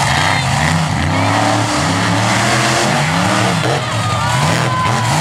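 Monster truck engines revving hard as two trucks race side by side on a dirt track. Their pitch swoops up and down again and again, and the engines overlap.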